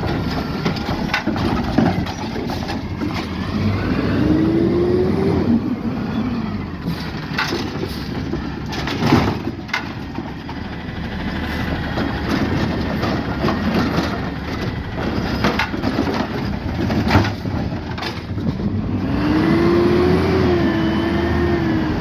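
Peterbilt 520 refuse truck with a Heil Rapid Rail automated side loader running, its engine revving up and easing back twice as the hydraulic arm works. Sharp bangs and clatter come through several times, as recycling carts are handled and emptied into the hopper.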